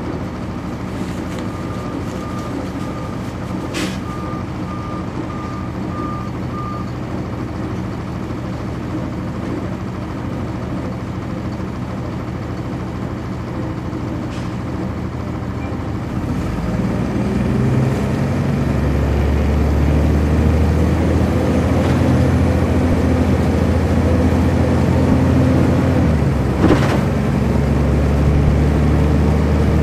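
On board a 1999 NovaBus RTS transit bus, its Cummins ISC inline-six diesel runs low and steady at first, with a run of evenly spaced high beeps and a sharp click. About halfway through, the engine revs up and gets louder as the bus pulls away, its pitch climbing in steps as the ZF Ecomat automatic transmission works through the gears.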